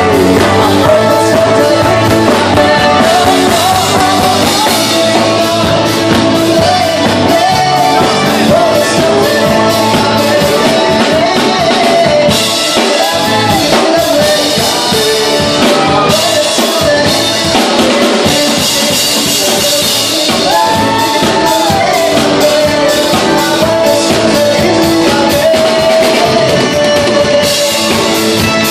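Loud Jewish wedding dance music: a singer over a band with drums, playing without a break.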